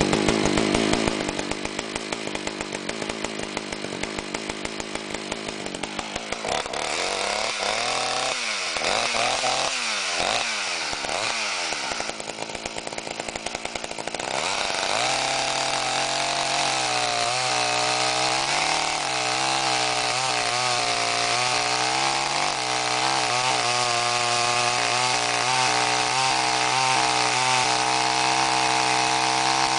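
Dayton 4Z252 85cc two-stroke chainsaw (a Poulan 5200 under another name) idling steadily at first, then revved up and down a few times, and from about halfway on running at full throttle as it cuts through a large red oak log, its note sagging briefly now and then under the load.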